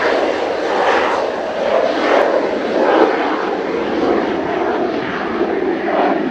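Mitsubishi F-2 fighter's jet engine running, a loud continuous rushing noise that swells and eases about once a second.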